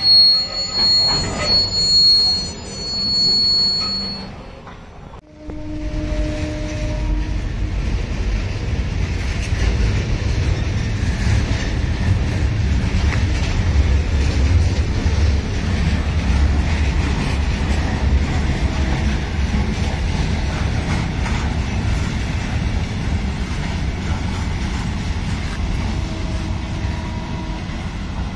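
Freight train of flat wagons loaded with concrete-mixer drums passing, its wheels squealing high-pitched for the first few seconds. After a brief dip it gives way to a steady low rumble of the wagons rolling over the rails.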